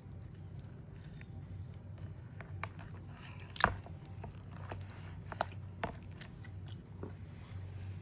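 Scattered short clicks and light scrapes of a wet tortoise being handled in a plastic basin, its shell and claws knocking on the basin, with one sharper knock a little past halfway. A steady low hum runs underneath.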